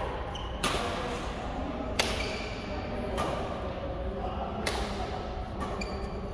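Badminton rackets striking a shuttlecock in rallies: five sharp smacks about a second apart, each ringing briefly in the echoing hall, with a few short high shoe squeaks on the court floor.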